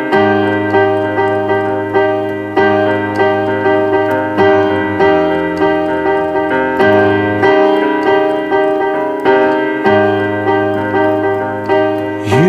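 Piano playing a slow song introduction: chords struck evenly, a little under two a second, each fading before the next, over a held bass note.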